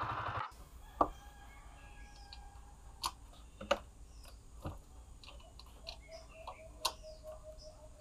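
Yamaha Sniper 150's single-cylinder engine idling, then cut off by the ignition key about half a second in. Scattered sharp metal clicks and clinks follow as a socket wrench is fitted and worked on bolts under the engine.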